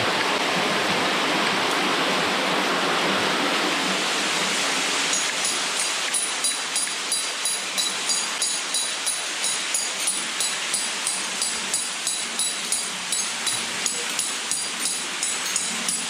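Hammer striking a steel anchor bolt set in a drilled hole in cave rock, about two blows a second, each with a short metallic ring. The blows start about five seconds in, after a steady rushing noise.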